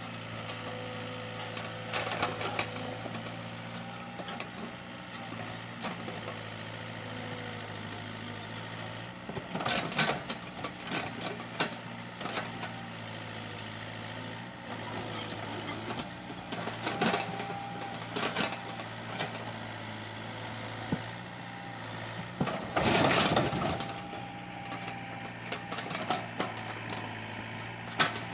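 Sumitomo mini excavator's diesel engine running steadily while it digs out a tree stump, with a short burst of knocking and scraping every several seconds; the loudest burst comes about two-thirds of the way through.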